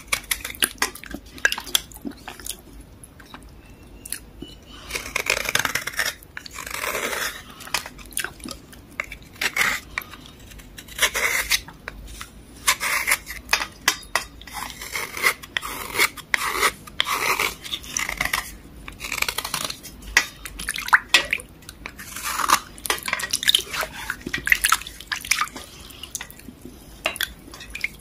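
Knife blade scraping the softened surface of a water-soaked block, in many short, irregular wet scratching strokes, with drips into water.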